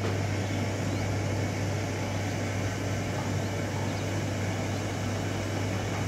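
Steady low hum over constant background noise, with a few faint, short, high chirps from the young quail chicks.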